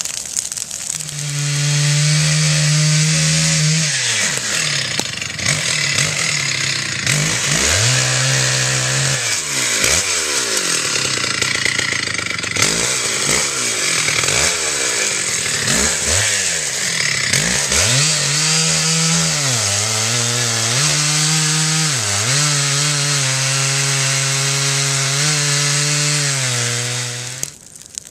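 Two-stroke chainsaw running and cutting into a log. Its engine speed drops and climbs back again and again, and it cuts off abruptly near the end.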